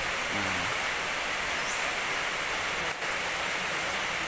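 Steady, even background hiss with no distinct event, and a faint murmur of a voice about half a second in.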